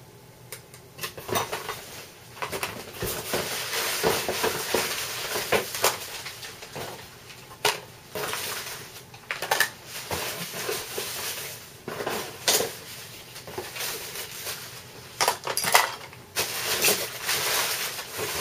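Packing material rustling and crinkling, with scattered sharp clicks and knocks as parts of a boxed airsoft gun are handled and unpacked.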